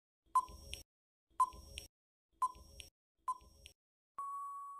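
Quiz countdown timer sound effect: four short ticks about a second apart, each with a brief ping, then a long steady beep near the end marking that time is up.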